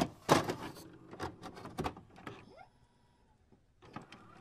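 Electronic glitch sound effects for a logo intro: a quick run of sharp static bursts and clicks with a short pitch glide, a brief pause, then a few more clicks.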